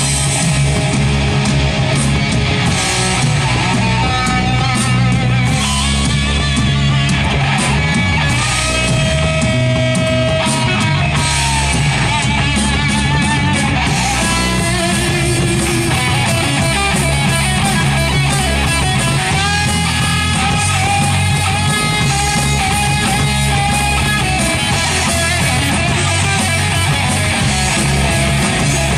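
Live rock band playing loud and steady, with a distorted electric guitar prominent over bass and drums.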